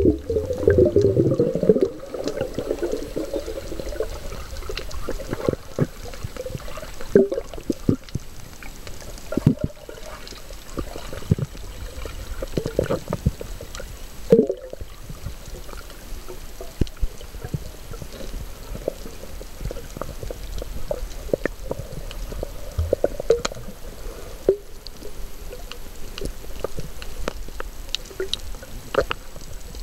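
Muffled underwater sound heard through a submerged camera: water swishing and gurgling, with a louder swirl of bubbles in the first two seconds, then a low rumble and scattered small clicks and pops.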